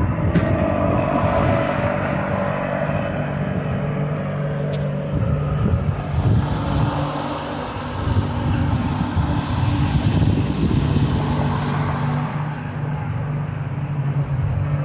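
A steady, droning rumble with a low hum under a rushing noise, from an unidentified source overhead, with no helicopter or plane in sight. The rushing part swells somewhat through the middle.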